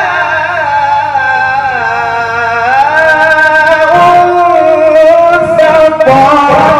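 A man's voice chanting Quran recitation (tajweed) in one long, drawn-out melodic phrase. The pitch is held and ornamented with slow rises and falls, and it breaks off near the end.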